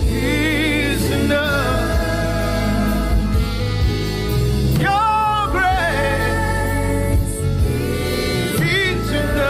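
Gospel worship song: a singer holding long notes with wide vibrato over a band with a steady bass line and drum hits.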